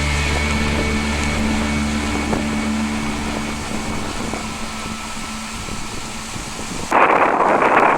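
A steady low mechanical hum, like a running engine, fades gradually. About seven seconds in it gives way abruptly to loud wind buffeting the microphone.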